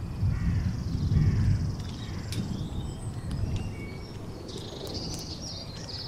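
Birds singing: high chirps and a buzzy trill over a low, uneven rumble, with a few sharp clicks.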